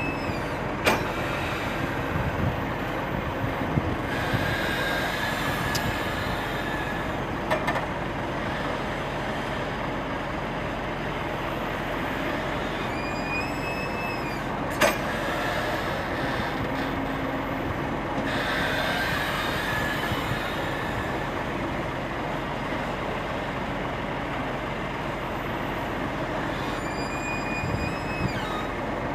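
Kobelco SK200 hydraulic excavator working: the engine runs steadily under a constant mechanical din, with a few brief high metallic squeals and some sharp clanks.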